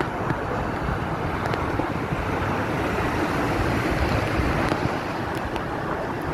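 Aare river current rushing and churning around a bridge pier: a steady, even rushing of water.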